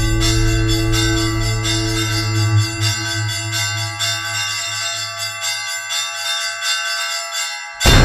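Church bells ringing a quick peal, many strikes overlapping, over a low hum that fades out partway through. At the very end a single loud cannon shot from an artillery gun cuts in.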